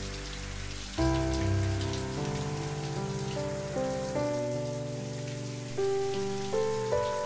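Shower water spraying steadily, under background music of slow sustained chords that change about once a second.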